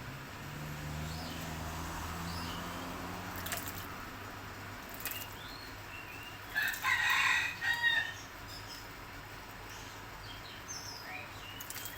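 A rooster crowing once, in two parts, about halfway through, over scattered short chirps from small birds.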